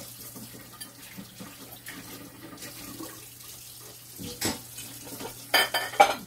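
Steady hiss of vegetables steaming and sizzling in a covered frying pan, with a few clatters of pots and dishes near the end.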